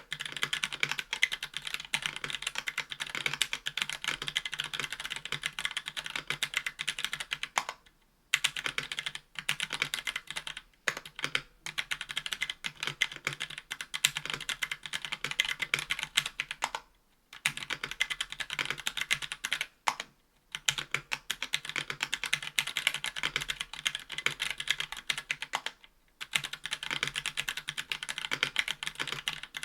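Steady typing on a 60% aluminium mechanical keyboard with Hako Royal Clear tactile switches, an aluminium plate and GMK keycaps: a dense run of key clicks and bottom-outs, broken by short pauses every few seconds.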